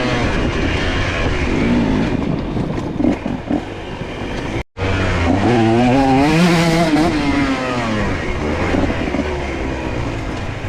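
125cc two-stroke dirt bike engine ridden hard on a trail, its pitch climbing and falling again and again with throttle and gear changes. The sound drops out for an instant about halfway through.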